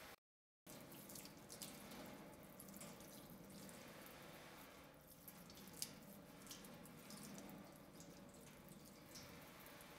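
Faint running tap water splashing into a stainless steel scrub sink, with small wet clicks from soapy hands being rubbed together. The sound cuts out completely for about half a second just after the start.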